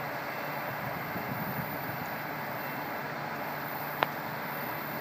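Steady rumble of distant vehicles, with one sharp click about four seconds in.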